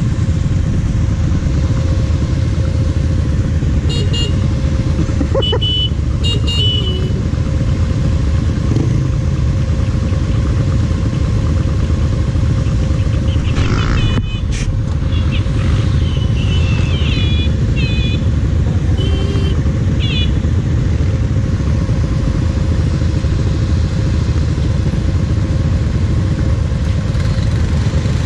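Quad (ATV) engine idling steadily close by.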